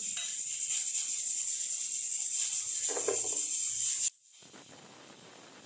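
Chopped onions sizzling in hot oil in a pot, a steady hiss that cuts off suddenly about four seconds in, leaving a much fainter hiss.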